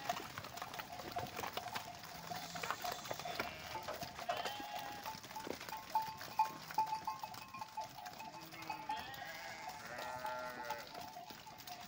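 A flock of sheep milling in a pen: scattered hoof knocks and shuffling, with a few bleats, the clearest near the end.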